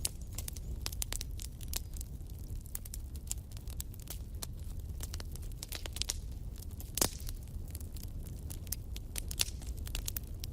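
Fire burning in a fireplace, crackling with many small irregular pops over a low steady rumble, one louder pop about seven seconds in.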